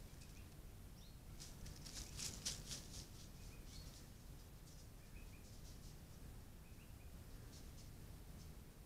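Faint rustling and crackling close to the microphone, loudest about two seconds in, over the steady low hiss of a trail camera's microphone, with a few faint short chirps.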